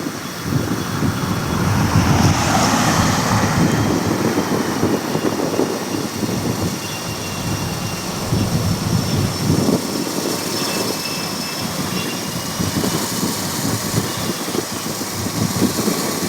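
Jet aircraft engine noise: a loud, steady roar with a faint whine that drifts slightly in pitch.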